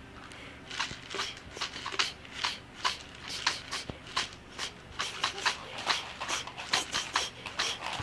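A baby rattling a small handheld object by shaking it: uneven rattling strokes about three a second, starting just under a second in.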